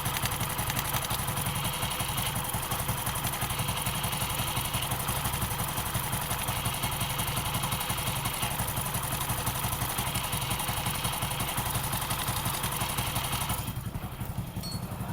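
Hero motorcycle single-cylinder engine idling steadily, heard close up, with a high hissing whine that comes and goes. The hiss comes from a hardened timing-chain roller guide, and it stops when the guide's bolt is loosened. The high hiss drops away about 14 seconds in.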